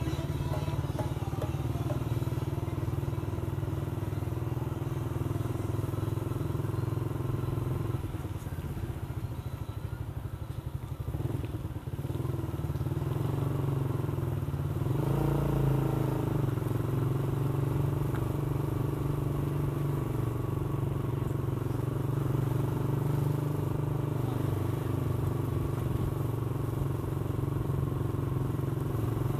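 Motorcycle engine running while riding. It eases off about a third of the way through, then picks up again with a rising pitch and runs steadily to the end.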